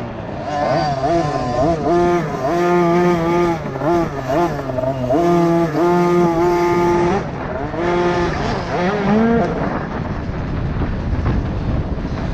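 Small 50 cc two-stroke motocross bike engines (KTM 50 SX) revving hard on the track, the high-pitched engine note climbing and dropping again and again with the throttle. About nine and a half seconds in the engine note fades and a steady rush of noise takes over.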